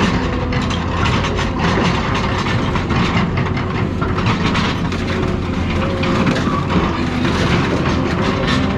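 Heavy machine engine running under load with a steady, dense clatter of metal clanks and knocks as scrap cars are torn apart.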